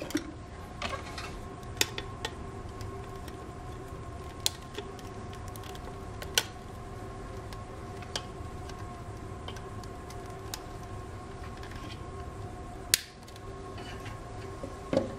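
Tools and metal power-supply parts being handled on a cloth-covered table: a scattering of sharp small clicks and taps, the strongest about thirteen seconds in, over a steady faint hum.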